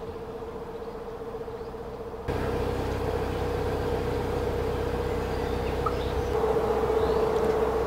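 Narrowboat engine running steadily under way: a continuous low rumble with a steady hum, which gets louder about two seconds in.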